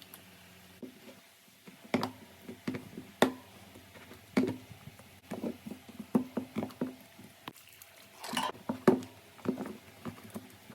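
Slime being worked, giving irregular sticky pops and clicks, a dozen or so at uneven intervals over a quiet background.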